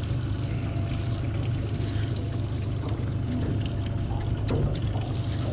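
Honda outboard motor idling steadily as a low, even hum, with a few light clicks and rustles of handling over it.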